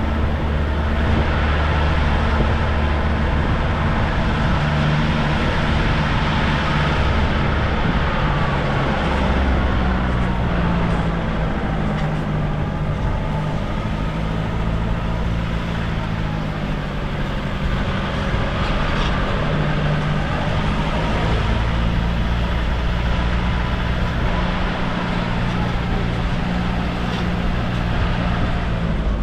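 A car driving along: steady engine hum and road noise, with the engine note shifting in pitch a few times as the speed changes.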